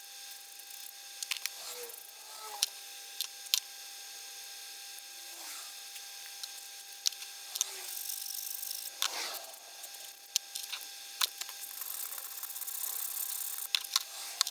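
Hand filing and handling of a small titanium watch-bracelet clasp: scattered scraping strokes with sharp metallic clicks and taps between them. The filing widens the clasp, which is too narrow on the inside to fit.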